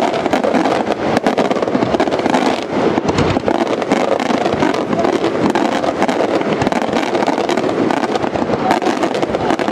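Aerial fireworks shells going off in a dense, rapid barrage, a continuous run of bangs and crackling with no pause.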